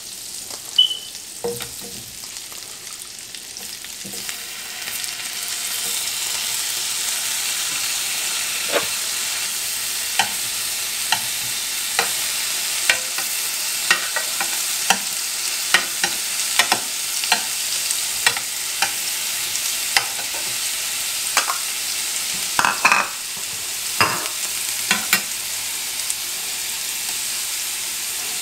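Pre-blanched Brussels sprouts sizzling in hot fat in a nonstick frying pan as they pan-roast, the sizzle swelling over the first few seconds and then holding steady. A metal spoon clicks against the pan about once a second as they are stirred, with a few louder knocks near the end.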